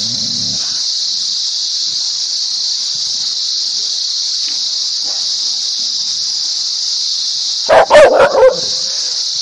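A steady high-pitched hiss throughout. Near the end a dog barks aggressively in a quick run of five or six barks lasting about a second, teeth bared.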